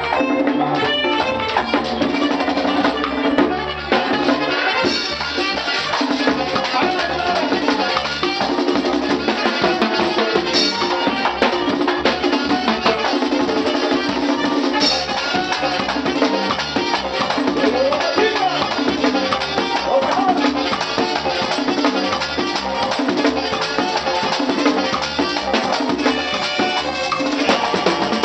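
Live merengue típico band playing with accordion, alto saxophone and tambora drum over a steady beat.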